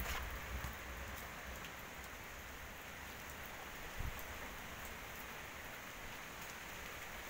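Light rain falling: a steady, even hiss with scattered drops ticking. A low rumble fades out in the first second, and there is a soft thump about four seconds in.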